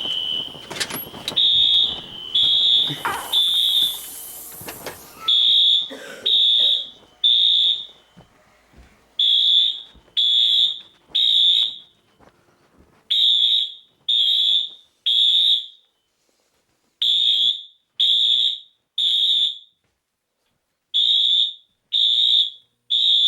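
Fire alarm sounder in alarm with a high-pitched beeping tone. It pulses rapidly for the first few seconds, then settles into a steady pattern of three beeps and a pause, repeated: the temporal-3 evacuation signal.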